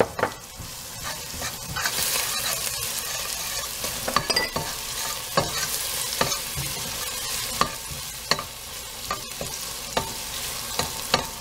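Chopped shallots and star anise sizzling in hot oil and palm sugar in a stainless steel pot, stirred with a metal spoon that clicks and scrapes against the pot many times.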